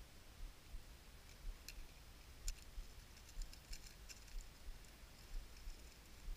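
Faint, scattered small clicks and ticks of monofilament fishing line and a lure's hooks being handled while a knot is tied, thickest in the middle of the stretch, over soft low thuds of the chest-mounted camera moving.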